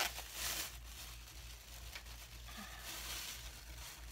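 Packaging rustling and tearing in a few soft bursts as a small boxed clock is unwrapped by hand.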